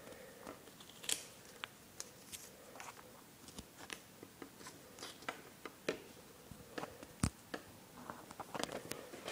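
Faint, scattered small clicks and light knocks over quiet room tone, with a sharper knock about seven seconds in and more frequent clicks near the end.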